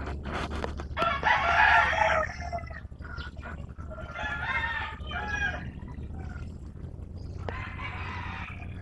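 A rooster crows three times, each crow about a second long. Under it runs a steady low rumble: the distant diesel engine of a departing PNR Hyundai Rotem DMU.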